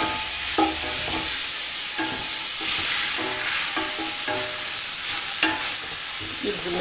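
Sliced onions frying in melted samn (clarified butter) and a little oil in a stainless steel pot, with a steady sizzle, while a spatula stirs and scrapes them, knocking against the pot about once a second with a short metallic ring. The onions are softening and starting to turn translucent.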